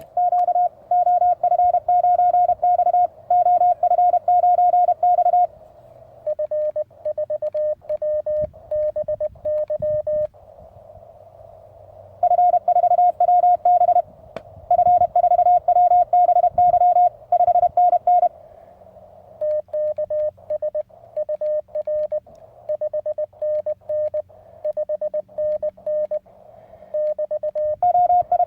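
Morse code from a Weber MTR CW transceiver: rapid keyed beeps at one pitch alternate with runs of slightly lower, quieter beeps, two stations taking turns in a CW exchange, with receiver hiss in the gaps.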